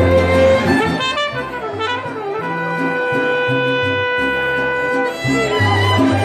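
Live mariachi band playing an instrumental passage: trumpets hold long notes over strummed guitars and a low bass line that moves about every half second.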